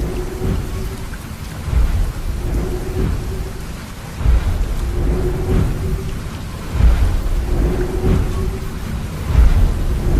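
Sound-effect thunderstorm: steady rain hiss with deep rumbles of thunder rolling in about every two and a half seconds.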